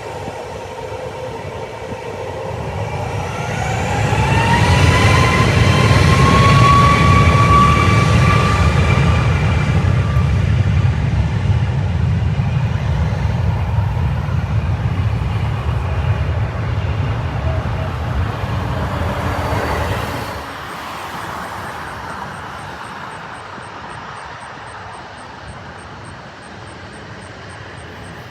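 Jet airliner engines: a whine rising steadily in pitch over a loud, heavy rumble. About twenty seconds in, the sound drops abruptly to a quieter, steadier jet engine noise.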